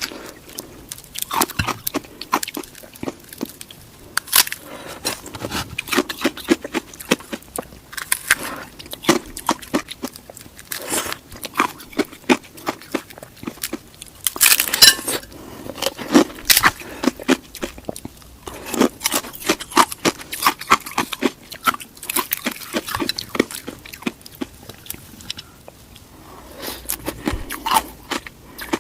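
Ice being bitten and chewed close to the microphone: irregular clusters of sharp crunches and cracks, with brief pauses between bites.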